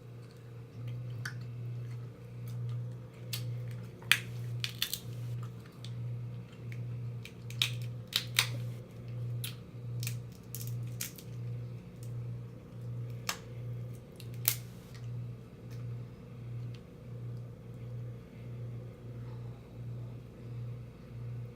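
Crab leg shells cracking and snapping as they are broken open and eaten, a dozen or so sharp cracks scattered through the first two-thirds. Under them runs a low hum that pulses about three times every two seconds.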